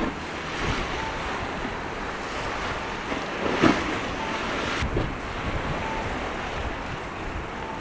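Strong gusty wind buffeting the microphone over the wash of the sea, with a sharper gust about three and a half seconds in.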